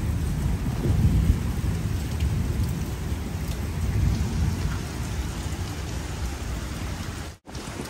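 Kalboishakhi (nor'wester) thunderstorm: heavy rain and storm wind, a steady deep rumble under a hiss of rain. The sound cuts out for an instant near the end.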